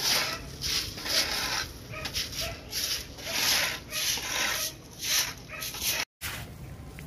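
A stiff hand broom scrubbing over wet, freshly poured concrete while it is being hosed down, in quick rhythmic hissing strokes about two a second. The strokes stop near the end.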